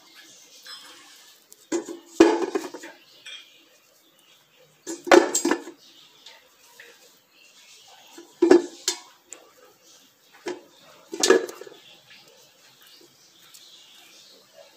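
Pieces of pumpkin being set one at a time into a stainless steel pot, each landing with a short knock and clink against the metal, about every three seconds.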